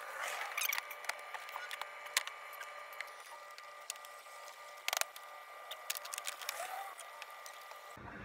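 Light plastic clicks and rattles as the lower grille of a 2015-2017 Mustang front bumper is handled and pressed onto its retaining clips, with one sharper click about five seconds in. A faint steady whine runs underneath.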